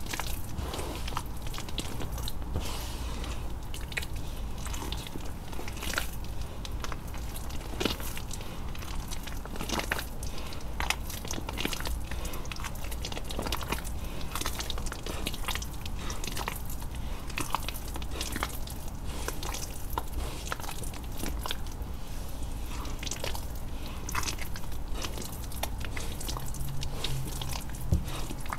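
Hands squeezing and kneading a thick wet paste of gym chalk and coloured powder mixed with water: continual wet squishing with many irregular sharp clicks and pops as the paste is squeezed and pulled apart.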